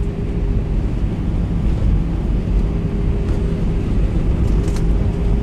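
Airliner cabin noise while the plane rolls on the ground after landing: a loud, steady rumble of engines and wheels with a constant hum running through it.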